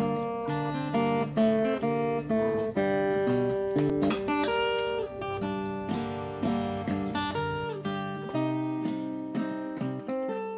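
Background music: an acoustic guitar playing a run of plucked chords and notes.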